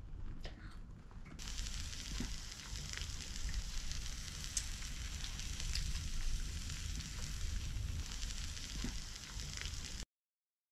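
Takoyaki batter sizzling on a hot electric takoyaki grill plate, a steady hiss with a few faint pops. It gets louder about a second and a half in and cuts off suddenly near the end.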